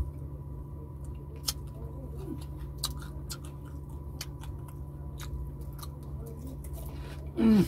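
Close-up eating sounds: scattered small clicks and crackles of crispy fried tilapia being picked apart by hand and chewed, over a steady low hum. Near the end, a short loud voice sound falling in pitch.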